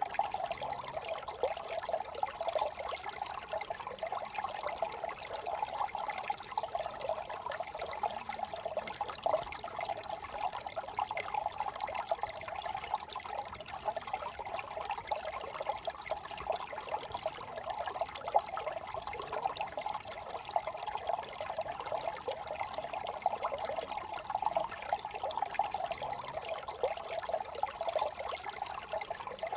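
Small desert brook trickling steadily, a continuous splashing of flowing water with no breaks.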